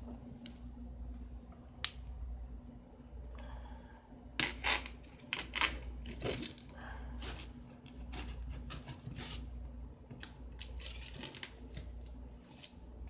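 A large cardboard box being opened by hand: scraping, tearing and crinkling of cardboard and packing tape in irregular bursts. A few isolated scratches come first, and the busiest, loudest tearing starts about four seconds in.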